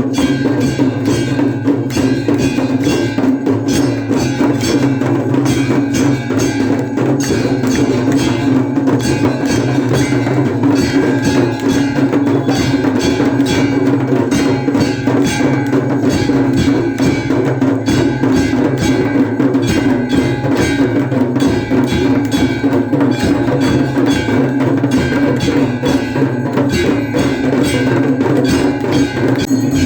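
Aarti ritual music: temple bells and percussion struck rapidly and without pause, over a steady low tone.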